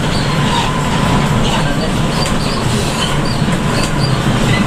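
Steady low drone of a bus's engine and tyres running at speed on a rain-wet road, heard from inside the driver's cab.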